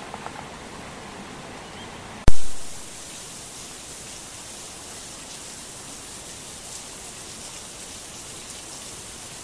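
A single very loud, sharp click about two seconds in, a splice glitch where one recording gives way to another, over a steady hiss of background noise.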